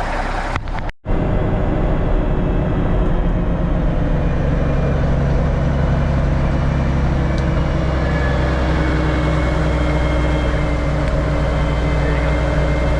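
Kenworth self-loading log truck's engine running steadily as the loaded truck drives off. The sound cuts out for a moment about a second in.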